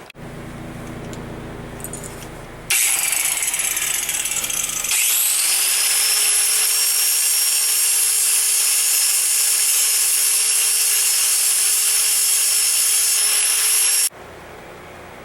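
A small high-speed power tool running: a loud, hissing, grinding noise starts suddenly, then about five seconds in a whine rises and settles to a steady pitch. It stops abruptly near the end.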